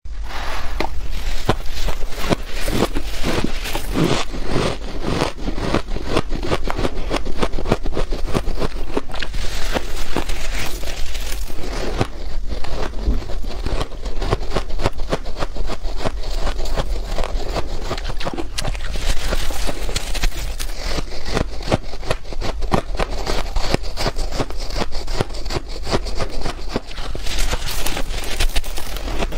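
Soft frozen ice being bitten and crunched close to the microphone, a dense, continuous run of crackly crunches.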